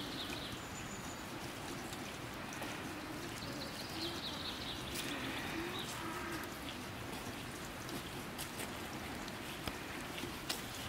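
Outdoor ambience: a steady hiss with a few faint bird chirps at the start and again about four seconds in.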